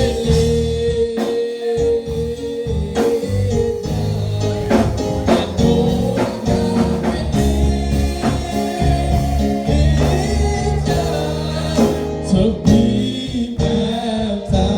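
Gospel music with singing over sustained bass notes and regular drum beats.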